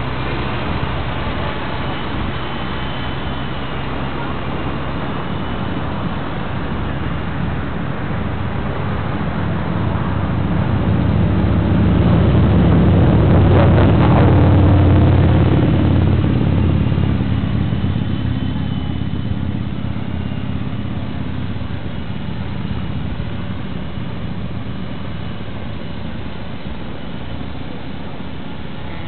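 450-size radio-controlled helicopter in flight, a steady rotor and motor hum that swells to its loudest as the helicopter passes close about halfway through, then fades again.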